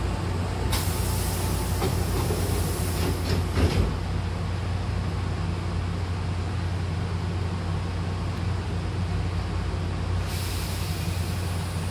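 Double sliding doors of a Hankyu train closing: a hiss starts about a second in and the doors knock shut about three and a half seconds in, over the steady hum of the stopped train. A second hiss starts near the end.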